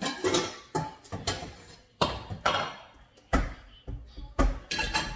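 Pots and pans clattering and knocking together as a pot is pulled out of a kitchen cabinet: a quick run of sharp knocks, with two heavier thuds about three and a half and four and a half seconds in.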